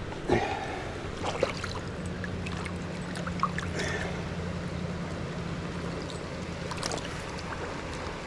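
Steady rush of river water, with scattered small clicks and knocks close to the microphone. A low steady hum comes in about two seconds in.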